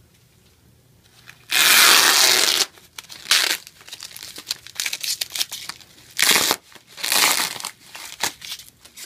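Brown packing tape being peeled off plastic bubble wrap in a series of ripping pulls, the longest and loudest starting about one and a half seconds in and lasting about a second, with shorter rips after it and the bubble wrap crinkling as it is handled.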